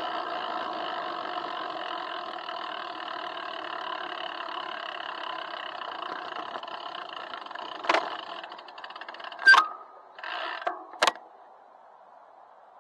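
Muffled riding noise from a bicycle, heard through a waterproof camera housing on the handlebars: a steady hum with a few held tones that slowly fades as the bike slows. Near the end come a few sharp knocks and a brief rattle, the loudest knock about two-thirds of the way in, as the bike comes to a stop, and then it goes quieter.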